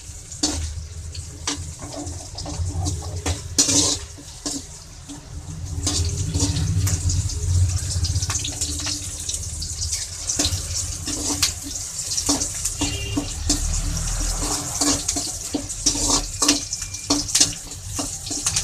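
Chopped onion and curry leaves sizzling in hot oil in a metal kadai, with a steel spoon clicking and scraping against the pan as it is stirred. The sizzle grows louder about six seconds in.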